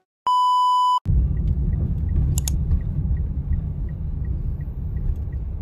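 A single steady electronic beep, one pure tone under a second long, followed by the low rumble of a moving car heard from inside the cabin, with a faint regular ticking about three times a second and a single click about two and a half seconds in.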